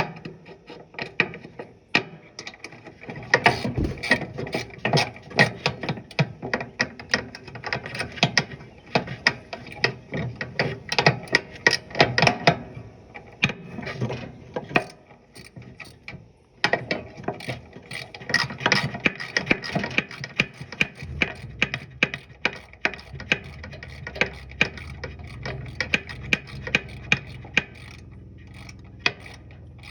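Hand ratchet clicking in quick runs as it tightens engine mounting bolts, with short pauses between strokes.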